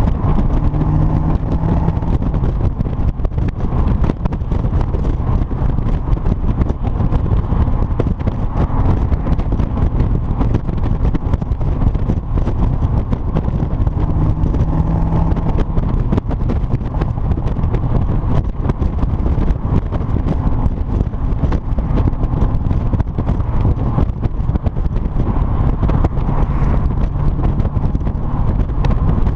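Triumph TR7 with a 3.9-litre V8 engine running through a single-bore exhaust, a steady low exhaust note.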